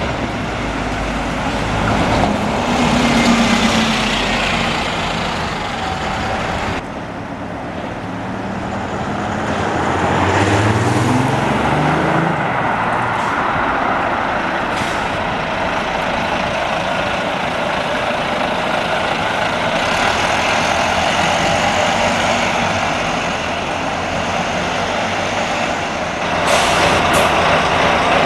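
Diesel buses running in street traffic: one engine's pitch rises as it pulls away, and a hiss of air brakes sounds near the end.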